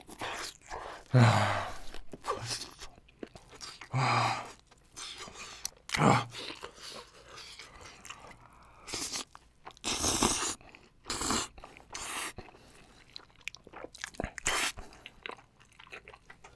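A person eating spicy cold noodles close to the microphone: steady wet chewing, with longer slurps of noodles about ten seconds in.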